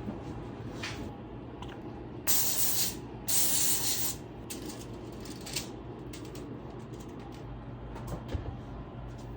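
Two short bursts of hissing spray, each under a second, about half a second apart, like an aerosol cooking spray being sprayed.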